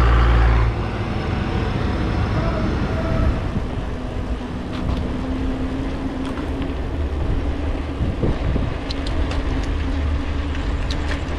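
A city bus engine rumbling deep alongside, cutting off abruptly less than a second in, followed by steady street traffic noise with a few sharp clicks.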